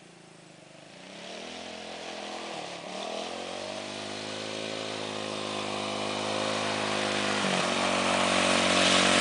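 ATV engine running and growing steadily louder as it comes closer, its pitch rising with the revs and dropping briefly twice, about three seconds in and again near the end.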